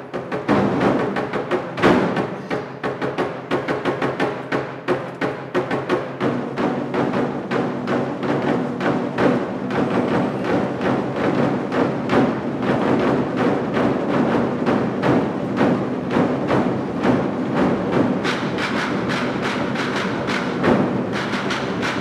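A large ensemble of 24 Festive Drums, Chinese barrel drums struck with sticks, played together in a fast, dense rhythm. A heavy accented stroke lands about two seconds in.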